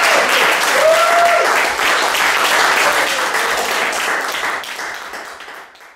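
Small audience applauding, with a held cheer about a second in; the applause fades out over the last second or so.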